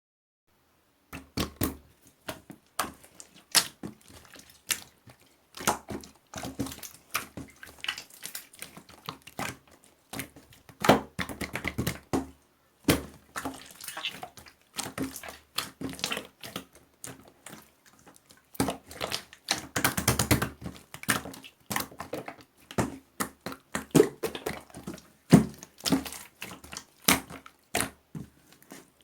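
Marbled slime being squished and kneaded by hand, giving an irregular stream of sharp wet clicks and pops. It starts about a second in and grows denser around two-thirds of the way through.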